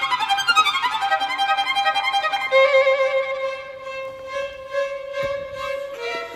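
Violin music: quick falling runs of notes, then a long held note with vibrato that steps down to a lower note near the end.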